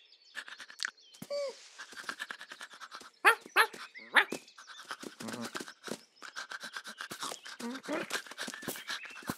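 Cartoon dog's quick, rhythmic, excited panting, broken by a few short, high-pitched squeaky yelps about three to four seconds in.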